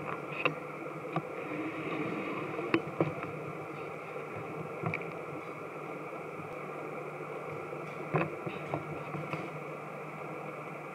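Steady machinery hum with a high whine held over it, from ground machinery around a parked airliner. It is broken by a few sharp clicks and knocks, the loudest about half a second, three seconds and eight seconds in.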